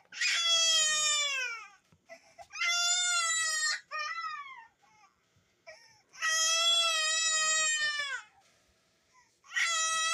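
Baby crying: long wailing cries, each falling in pitch at its end, with short gaps for breath between them. Four long wails and one short cry.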